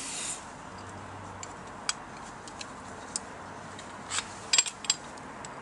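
Irregular light metallic clicks and clinks of a hex-key tool being fitted to and worked on a bolt, over a steady faint hiss.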